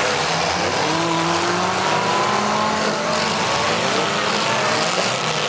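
Several demolition derby cars' engines running and revving at once in the pit, their pitches rising and falling over one another as the drivers accelerate and back off.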